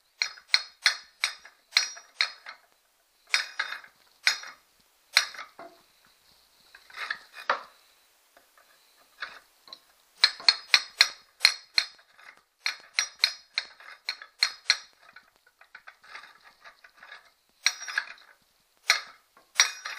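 Steel rod clinking and knocking against metal in an outboard's rusted tilt tube as it is worked through the tube, in quick clusters of sharp, ringing metallic clinks with a pause midway.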